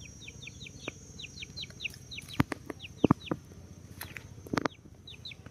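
Chickens calling: a quick run of short, falling chirps in uneven groups, with a few sharp knocks between them and a faint steady high tone.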